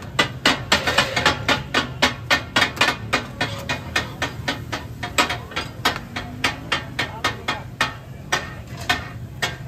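Metal spatulas striking a large iron tawa griddle again and again while chopping fried fish: the rapid, uneven clatter of katakat, about three to four ringing clangs a second.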